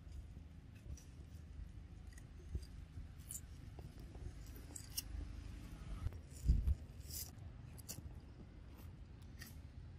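Macaques handling and biting into food: scattered crisp clicks and crunches, with one louder low thump about six and a half seconds in.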